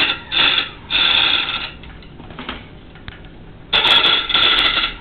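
A small power tool's electric motor whirring in short stop-start bursts as nuts are run along threaded rod: a brief burst, then a longer one, then another of about a second near the end, with light clicks in between.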